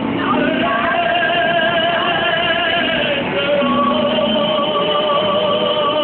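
Operatic singing: long held notes with a wavering vibrato, the second note starting about three seconds in, over a musical accompaniment.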